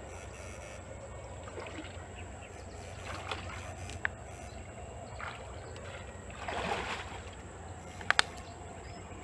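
Water sloshing and trickling around the legs of a person wading through a shallow canal, over a steady low hum, with a louder surge of sloshing around the middle. Two sharp clicks close together near the end are the loudest sounds.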